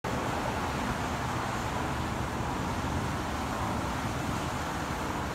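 Steady traffic noise from a distant multi-lane highway, the tyres and engines of passing cars and trucks blending into one even rush.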